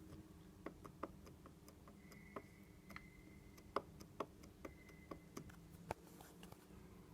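Faint, irregular metallic clicks, about a dozen, from the left connecting rod of a Jawa 640 California two-cylinder engine being rocked up and down on the crankshaft with the cylinders off. They come from play in the rod's big-end bearing, whose cage the owner believes has broken up.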